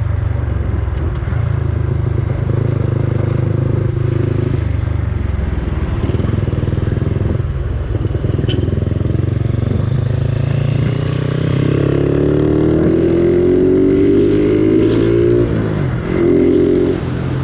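Yamaha Sniper 135's single-cylinder four-stroke engine with an aftermarket Replica Pro exhaust, running at road speed under a rider. About two-thirds of the way in, the engine note climbs steadily as it accelerates, then drops off sharply near the end before settling again.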